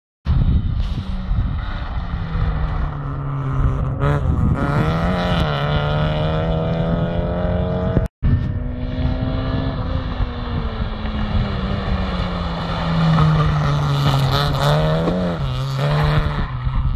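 Honda Civic rally car's engine revving hard under full throttle. Its pitch climbs through the gears with quick shifts, cuts out for a moment about eight seconds in, then falls and climbs again as the car comes closer.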